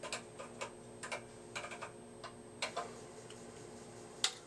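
Keys typed on the IMSAI PCS-80/30 computer's keyboard to enter a monitor command: a run of irregular key clicks, with one louder, sharper click near the end, over a steady low hum.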